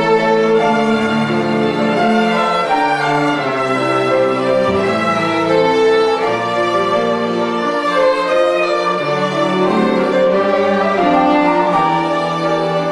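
Violin playing a slow melody over sustained lower accompanying notes, in a live performance of a classical piece.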